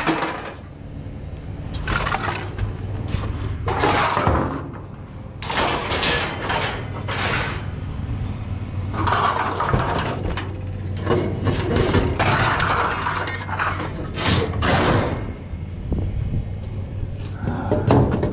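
Scrap metal being handled and tossed about: repeated clanks and rattles of metal pieces, including a wire-grid refrigerator condenser coil, every second or two, over a steady low hum.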